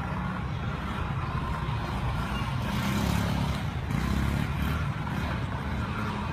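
Small motorbike engines running steadily, a low engine drone.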